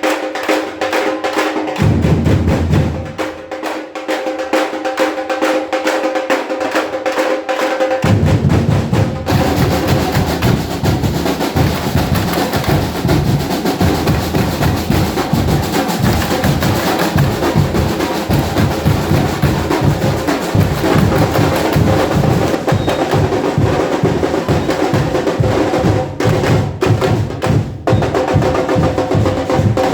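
Carnival drum ensemble playing live: a fast, dense beat of snares and higher drums, with the bass drums coming in heavily about eight seconds in.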